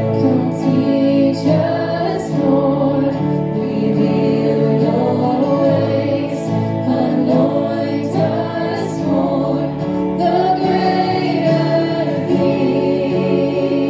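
Music with several voices singing over sustained chords.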